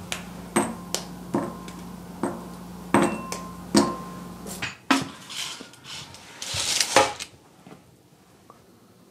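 Broken pieces of chocolate dropped one by one into a glass mixing bowl, each landing with a sharp clink and a short glassy ring, about eight times in the first four and a half seconds, over a steady low hum. A few softer knocks and rustles follow before it goes quiet.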